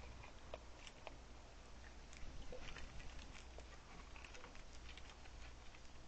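A raccoon feeding on a bird feeder tray heaped with seed: faint, irregular crunching and clicking of seeds as it chews and picks through them.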